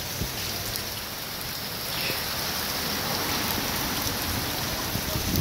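Heavy rain falling steadily in a severe storm, an even hiss of rain on the ground and surroundings.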